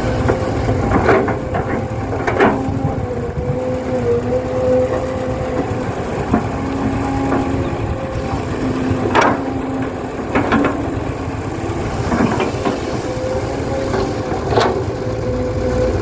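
Excavator running steadily with a wavering hum, and a sharp knock every couple of seconds as it loads earth into a dump truck.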